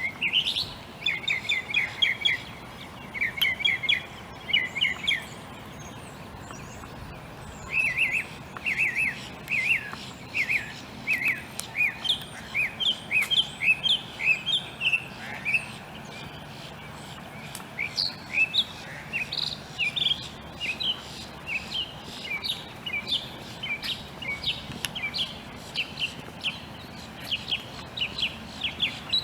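Small birds chirping: many short, quick chirps in bouts, with a couple of brief pauses between them.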